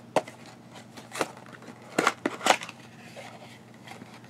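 A paperboard pen-set box being handled and opened, giving sharp taps and clicks of card: one near the start, one about a second in, and a quick cluster of three about two seconds in, with softer scraping as the inner tray slides out of its sleeve.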